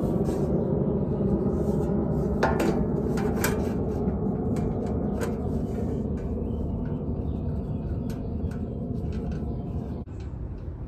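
Scattered metallic clinks and taps of tools and parts being handled on an outdoor AC condenser unit during fan motor work, over a steady low background hum; the background drops abruptly near the end.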